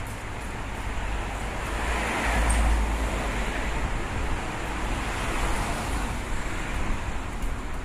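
Road traffic on a wet city street: car tyres hissing on the wet asphalt over a low rumble. It swells as a car passes about two and a half seconds in, and again around five and a half seconds.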